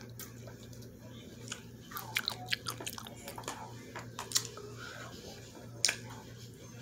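Close-up chewing and biting on a sour pickle, with a run of sharp wet crunches about two to four seconds in and one loud crunch near the end.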